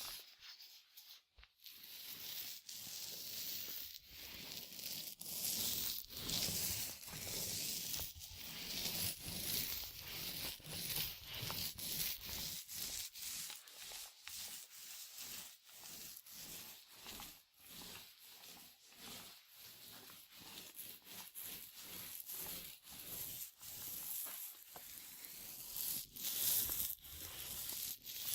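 Paint roller rolled over a surface in repeated strokes: a hissing rub that swells and breaks off with each pass.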